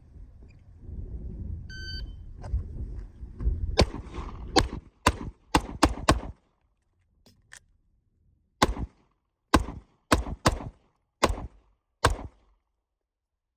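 Shot timer beeps once, then a pistol fires twelve shots in two strings of six, with a pause of about two and a half seconds between them; the last shot falls about 10.4 seconds after the beep, a timed cold-start drill run.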